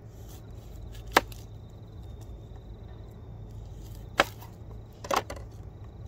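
Knife chopping vegetables: a few sharp separate strikes, the loudest about a second in, another about four seconds in and a quick pair near the end.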